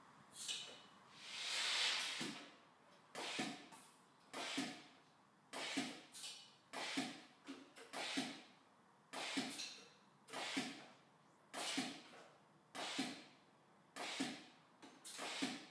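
Compressed-air vacuum gripper giving off short puffs of air at an even pace, about one every 1.2 seconds, with a longer, louder hiss about two seconds in.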